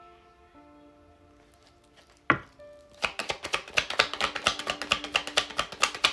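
Soft background music of held notes. A little over two seconds in comes one sharp knock, then from about three seconds on a fast run of sharp clicks, about seven a second.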